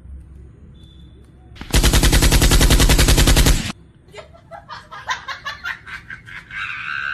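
A burst of rapid automatic gunfire, a comedy sound effect, lasting about two seconds and cutting off sharply. A quieter patter of clicks follows it.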